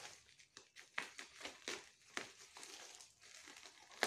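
Black plastic parcel wrapping crinkling in irregular crackles as it is cut open with scissors and pulled apart, with one sharper, louder crackle near the end.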